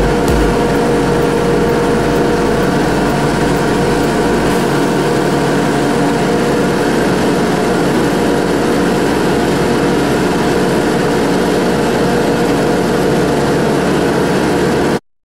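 Case IH Magnum 250 tractor's diesel engine and Krone mower drive running steadily under load while mowing, a steady hum of several tones over rough machine noise. The deep rumble falls away about four and a half seconds in, and the sound cuts off abruptly at the very end.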